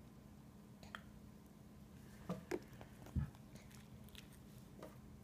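A baby eating oatmeal: a handful of faint, scattered taps and clicks of a baby spoon against a ceramic cup, with small mouth sounds, over a steady faint hum.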